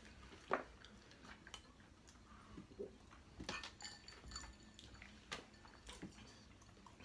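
Faint chewing and crunching of Hot Cheetos-crusted fried chicken, a scatter of short crunches and mouth clicks, busiest around the middle.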